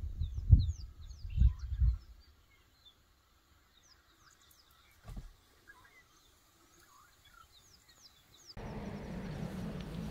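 Small birds chirping and giving quick falling whistles over a quiet background. A few short, low thuds sound in the first two seconds, and near the end a steady low rumble comes in.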